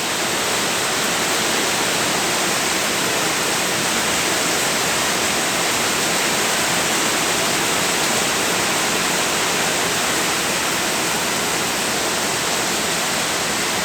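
Heavy rain pouring down, a loud, steady, unbroken rush of water.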